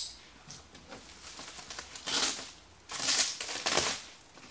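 Packing tape on a cardboard box being slit or torn open: a sharp click at the start, then scratchy strokes of cardboard and tape about two seconds in and twice more between three and four seconds in.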